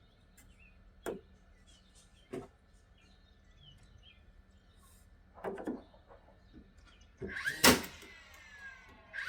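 A few sharp, isolated knocks over quiet background, then a louder clattering burst about seven and a half seconds in.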